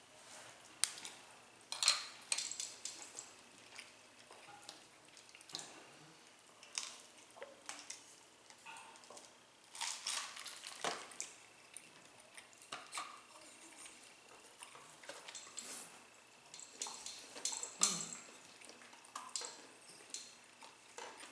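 Irregular clinks, taps and scrapes of eating: utensils and food being handled against plates, with short sharp clicks scattered throughout.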